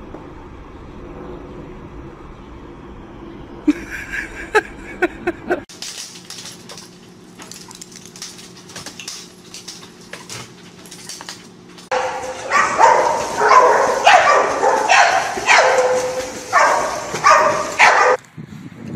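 A dog barking and yelping in a quick run of short, sharp calls, after a quieter stretch with a few light taps.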